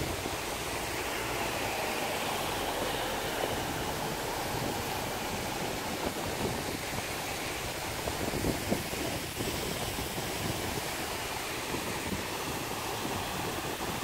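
Paddlewheel aerators churning the water of a shrimp pond, a steady rushing splash that keeps the pond aerated.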